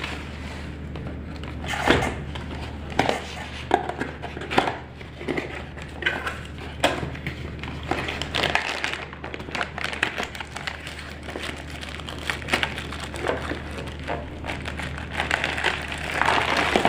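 Clicks, knocks and rustling of rotary changeover switches being handled and picked through, with many irregular short knocks. A steady low hum runs underneath.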